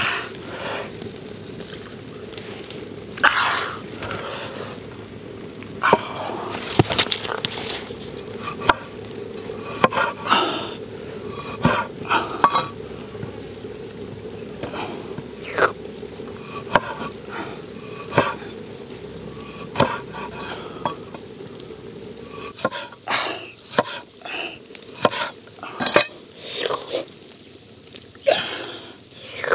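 Steady high-pitched insect trilling, with scattered short clicks and knocks of a knife cutting limes on a wooden board.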